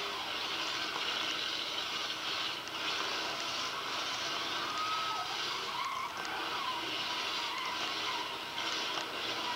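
Eight-cylinder demolition derby cars running hard and spinning their tyres, heard as a steady thin roar through a small playback speaker, with a few short squeals about halfway through.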